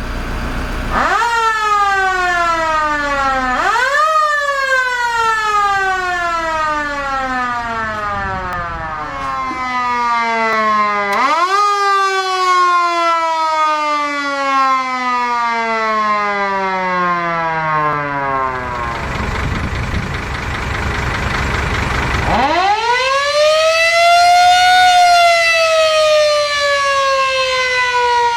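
Mechanical motor sirens on fire engines winding up fast to a high wail, then slowly winding down. They start up again about a second in, at about 4 and 11 seconds, and again near the end, and at times two wail together at different pitches. A rush of noise fills a few seconds after the 19-second mark.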